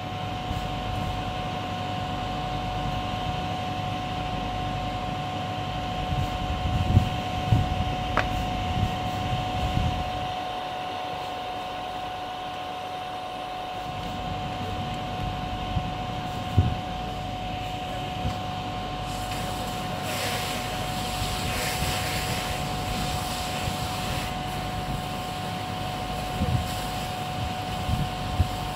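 Fire engine running its pump: a steady mechanical drone with a constant high whine. A hissing rush joins in for a few seconds about two-thirds of the way through, as water from the hose hits the hot, burnt-out car and raises steam.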